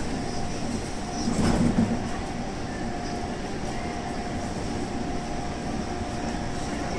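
Taipei Metro C301 electric train standing at the platform with its doors open: a steady hum carrying a constant tone over station background noise, with one brief louder knock about a second and a half in.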